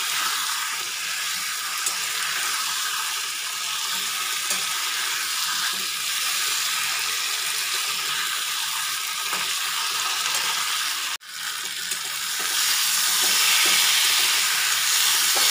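Boiled taro pieces and spice paste sizzling in hot oil in a kadai as they are stirred and fried down with a spatula, with a steady hiss and a few light scrapes. The sizzle cuts out for an instant about eleven seconds in and comes back a little louder.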